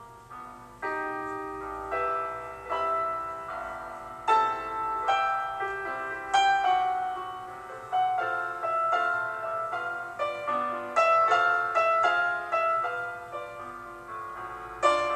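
Background piano music: a melody of struck notes that ring and fade, several at a time.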